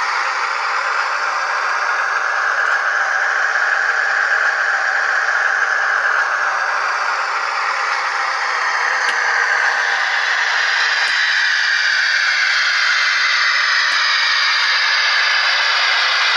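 SoundTraxx Tsunami sound decoder in an Intermountain model diesel locomotive playing its recorded diesel engine sound through the model's small speaker as it runs, with the equalizer set for extra bass. A steady engine drone with hiss and rattle; about ten seconds in the lower part thins out and a rising whine comes in.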